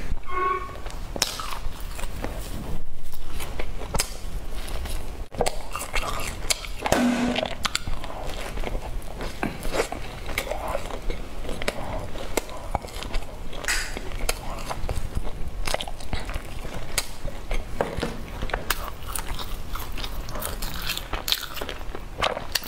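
Close-miked mouth sounds of a person biting into and chewing bread, with many small wet clicks and crackles.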